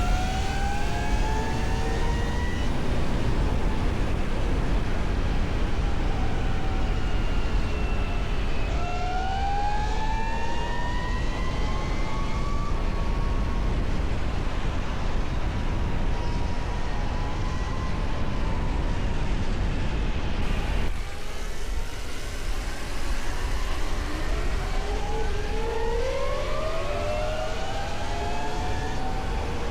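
QS165 12 kW mid-drive electric motor on a converted motorcycle whining as it runs, its pitch climbing as it accelerates, holding fairly steady, then climbing again in several runs. A steady rushing noise runs underneath.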